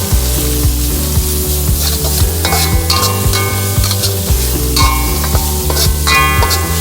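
Beef stir-frying in a hot pan: oil sizzling while a spatula stirs and knocks against the metal pan.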